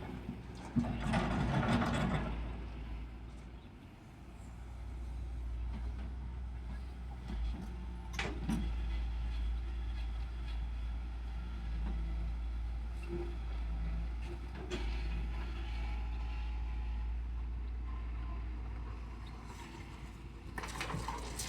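Heavy diesel earth-moving machinery running with a steady low rumble, with a loud rush of noise about a second in, a sharp knock around eight seconds and another burst near the end.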